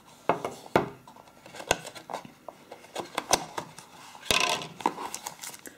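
Sharp clicks and taps of a phone battery and cardboard packaging being handled on a wooden tabletop, then a louder rustling scrape about four seconds in as a cardboard insert is lifted out of the box.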